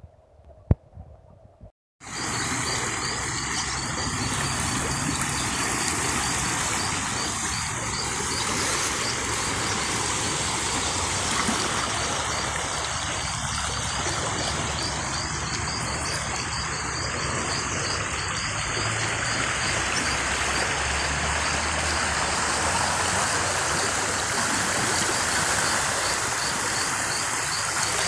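Swollen, muddy flood stream rushing steadily past its grassy banks, an even wash of water noise that starts abruptly about two seconds in, after a short near-quiet stretch with a single click. A faint, fast, high repeating pulse runs above the water.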